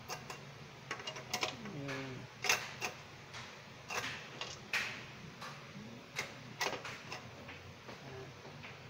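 Irregular sharp clicks and taps of metal and plastic parts inside an opened rice cooker base, as the thermostat switch lever and its contacts are pushed and worked by hand. The contacts are being adjusted because they stand too far apart to close.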